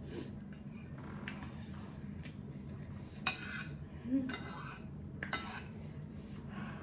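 Metal fork and spoon clinking and scraping against a plate as noodles are gathered up: a string of short, separate clinks, the loudest two a little past halfway.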